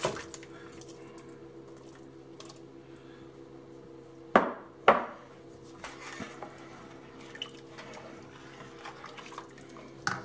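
Diced tomatoes sliding from a glass bowl into a stainless steel pot of broth, then a wooden spoon stirring the liquid with small splashes. The spoon knocks sharply twice against the pot about four and a half seconds in, over a faint steady hum.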